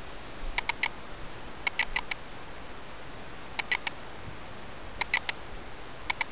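A digital camera's autofocus motor clicking in short clusters of three or four quick clicks, five clusters in all, as it hunts for focus in dim light, over a steady hiss.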